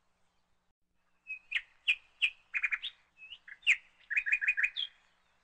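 Small bird chirping: quick runs of short, high chirps with an occasional rising note, starting a little over a second in.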